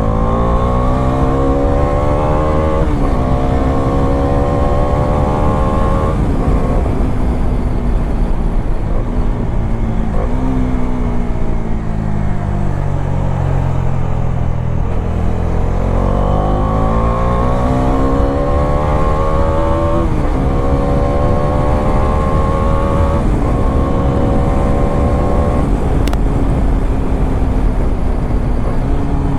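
Bajaj Dominar 400's single-cylinder engine accelerating hard through the gears. The pitch climbs and drops back at upshifts about three and six seconds in. It then falls as the bike slows, climbs again through two more upshifts, and settles to a steady cruise near the end.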